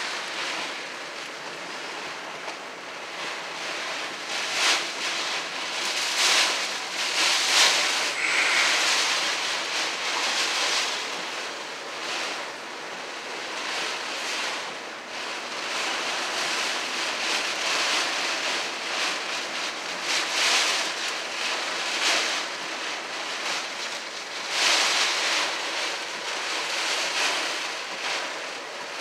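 Strong storm wind and heavy rain beating on a car, heard from inside the cabin as a continuous rushing noise that swells and eases in gusts every few seconds.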